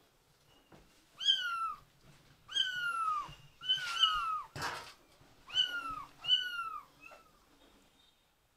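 Kitten meowing: five loud, high-pitched cries about a second apart, each falling in pitch, then a faint sixth mew near the end. A short burst of noise sounds between the third and fourth cries.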